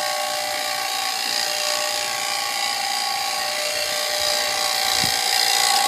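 Refrigeration vacuum pump running steadily, pulling an air-conditioning system down into a vacuum, a steady hum with a whine over it.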